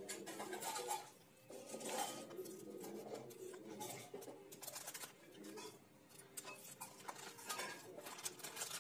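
A knife peeling a raw potato by hand, giving faint, repeated scraping and cutting strokes as the skin comes away. Birds coo faintly in the background.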